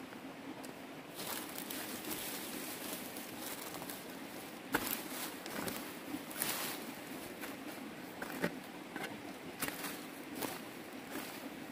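A digging tool working soil: steady scraping and crunching broken by irregular sharp strikes into the ground.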